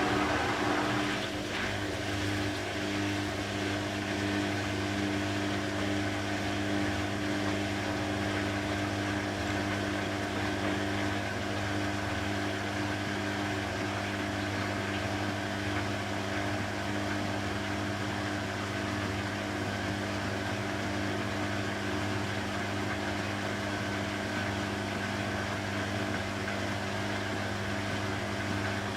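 Beko WTB841R2W washing machine running with a steady, unchanging hum.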